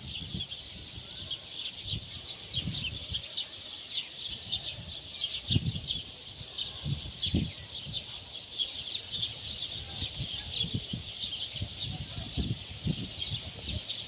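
Many small birds chirping continuously, a dense overlapping chatter of short high chirps, with a low rumble coming and going underneath.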